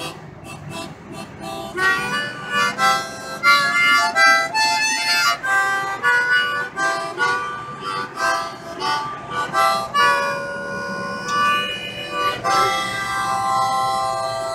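Harmonica played solo with the hands cupped around it: about two seconds of quiet rhythmic pulses, then a loud run of notes and chords, ending on a long held chord.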